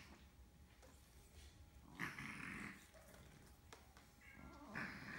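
A cat vocalising twice, briefly: once about two seconds in and again near the end, over a quiet room.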